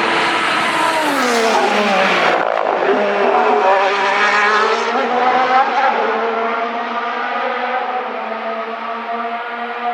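Ferrari F1-75 Formula 1 car's V6 turbo hybrid engine passing at speed: its pitch falls over the first couple of seconds as the car slows, climbs again from about three seconds in as it accelerates away, then settles into a steadier, slightly fading note.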